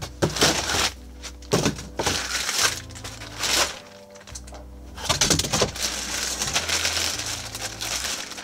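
Plastic bag wrapping crinkling and foam packing blocks rubbing as a keyboard is unpacked, in irregular rustling bursts over a low background music bed.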